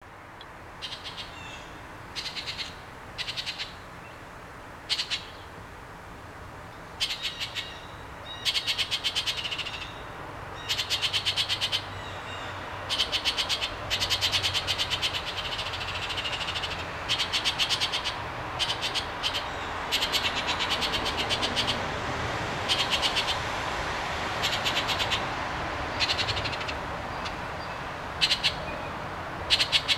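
Birds calling in short, rapid, rattling trills, each lasting about a second, sparse at first and then coming almost without a break from about eight seconds in, over a steady background hiss.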